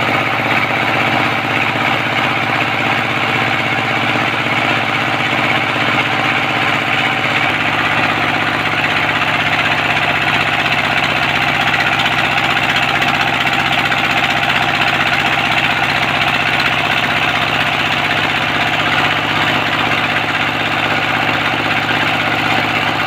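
ZS1115 single-cylinder horizontal diesel engine running steadily, with its pitch shifting slightly about seven seconds in.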